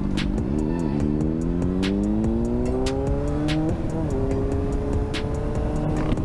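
Motorcycle engine pulling hard through a gear, its pitch rising steadily for about three seconds, dropping suddenly on an upshift about four seconds in, then holding steady.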